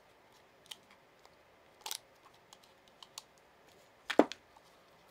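Plastic blister packaging being cut open and handled: scattered light clicks, a short crackle about two seconds in and a louder crackle near the end.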